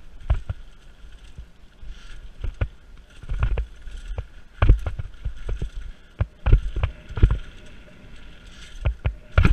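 Mountain bike rolling fast over a bumpy dirt singletrack: irregular thumps and rattles from the bike as it hits bumps and roots, sometimes several a second, over a steady hiss.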